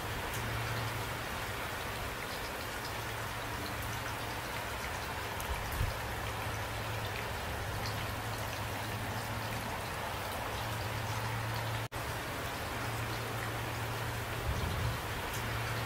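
Steady rain falling, with scattered ticks of individual drops over an even hiss and a steady low hum underneath. The sound drops out for an instant about twelve seconds in.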